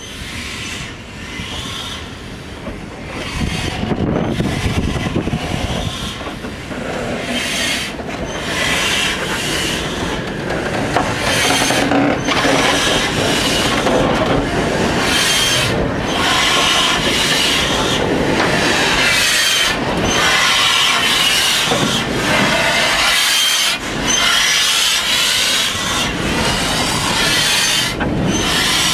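Locomotives rolling slowly past at close range, BR Standard Class 4 steam locomotive 75029 and then Class 24 diesel D5061, their steel wheels squealing and grinding against the rails. The noise grows louder about four seconds in.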